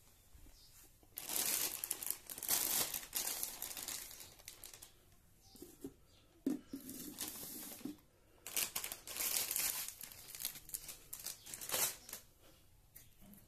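Plastic grocery packaging crinkling and rustling in irregular bursts with short pauses, as wrapped packets are handled and set down.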